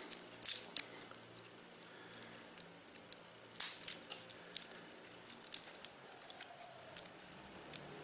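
Metal links of a Leatherman-style multitool bracelet clicking and clinking as it is handled and fastened on the wrist: a scatter of short sharp clicks, several close together near the start and again around the middle.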